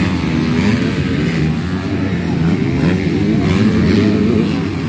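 Several motocross bikes racing, their engines revving up and down through the gears, several overlapping at once.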